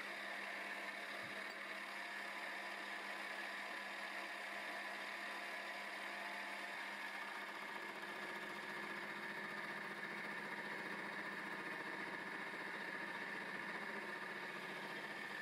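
X3 milling machine running steadily while its involute gear cutter cuts a tooth into a mild steel gear blank: an even, unchanging machine hum.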